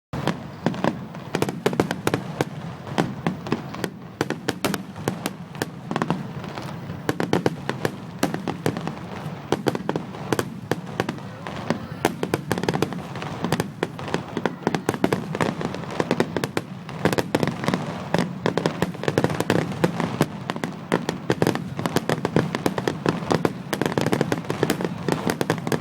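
Rapid, irregular cracking and popping, many sharp cracks a second without a break, over a steady low rumble.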